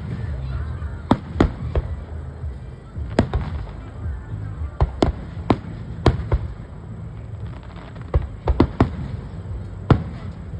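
Fireworks going off: about fifteen sharp bangs and cracks at irregular intervals, some close together in quick runs, over a steady low rumble.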